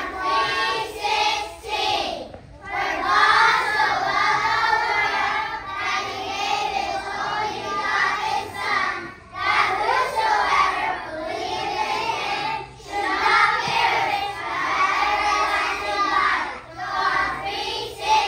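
A group of young children singing a song together in unison, phrase after phrase, with a few short breaks between phrases.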